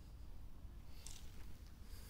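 Faint fur rustling as a cat rubs its head against the microphone, a brief brushing hiss about a second in, over a steady low rumble.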